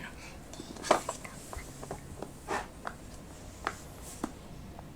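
Silicone pop-it fidget toy having its bubbles pressed one by one: a string of soft, irregular pops, about eight, the loudest about a second in.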